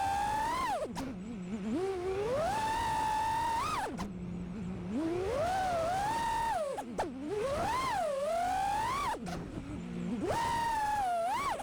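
Five-inch FPV quadcopter's brushless motors (iFlight Xing2 1855kv on a 6S battery) whining. The pitch sweeps up and swings as the throttle is punched, then drops to a low idle hum each time the throttle is chopped, several times over.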